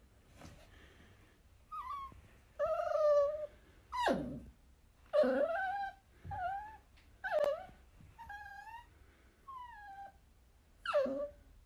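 Miniature dachshund puppy giving a string of about nine high-pitched yips and whines, some drawn out and bending up and down in pitch, a few of them short sharp barks.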